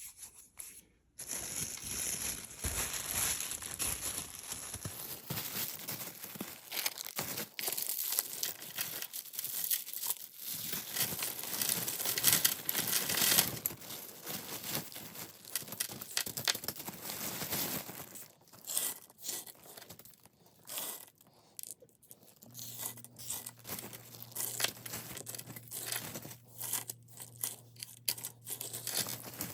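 A bag crinkling and rustling as jewelry pieces are packed back into it, dense for the first half and then in scattered rustles. A faint low hum comes in about two-thirds of the way through.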